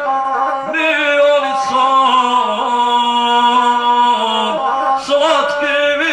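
A guslar singing an epic folk song in a single male voice over his gusle, the one-string bowed Balkan fiddle. The melody moves in short phrases and holds one long note in the middle.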